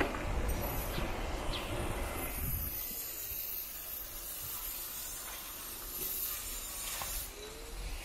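Steady road and wind noise while riding along a street: a low rumble for the first two and a half seconds or so, then a quieter, even hiss.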